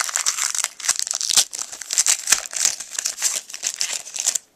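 Basketball trading cards being handled and shuffled through: a dense run of rustles and small scrapes that stops abruptly near the end.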